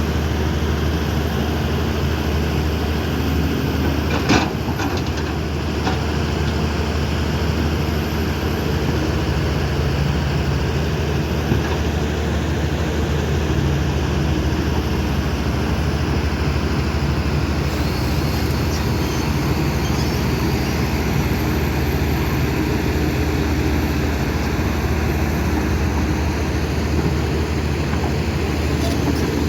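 Kobelco SK210 excavator's diesel engine running steadily, with a single sharp clank about four seconds in.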